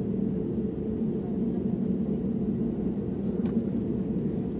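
Steady low cabin rumble of an Airbus A320-family airliner taxiing on the ground, its jet engines at low thrust, heard from inside the cabin. Two faint ticks come about three seconds in.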